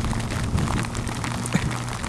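Rain pattering and ticking on a helmet-mounted camera and its mic, over wind noise and the steady low hum of a Honda CB150R's single-cylinder engine cruising at a constant pace.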